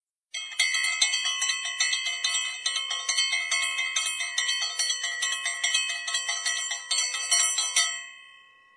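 Channel intro jingle of quick, bright bell-like chime notes, about three or four a second, ringing out and fading away near the end.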